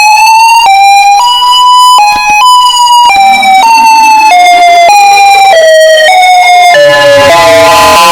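Warning siren sounding loudly, its tone jumping abruptly from pitch to pitch about twice a second. From about three to six seconds in, a fainter tone rises slowly underneath.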